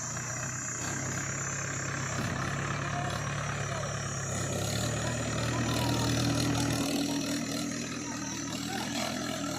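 Heavy diesel engine running steadily, growing louder and slightly higher in pitch about halfway through, then easing back.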